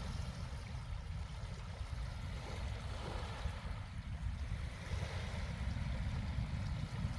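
Small waves washing onto a beach in slow swells, over a steady low rumble.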